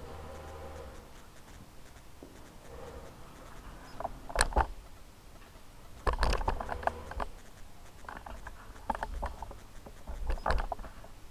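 Small metal parts and tools being handled on a steel bench plate: scattered clicks, taps and scrapes, with a denser cluster of knocks about six seconds in.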